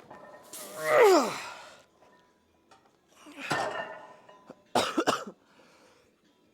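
A person coughing hard and out of breath after a heavy leg set. About a second in there is a loud cough that trails off into a falling groan. A rough, breathy cough follows a couple of seconds later, then a quick run of short, sharp coughs near the end.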